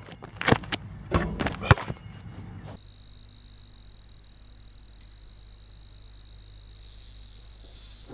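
A few sharp knocks and clatters, then an abrupt switch about three seconds in to a steady high-pitched insect buzz.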